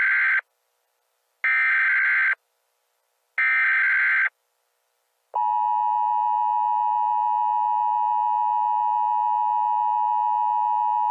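Emergency Alert System alert opening: three bursts of the buzzing digital SAME header, each about a second long and a second apart, then the steady two-tone EAS attention signal starting about five seconds in.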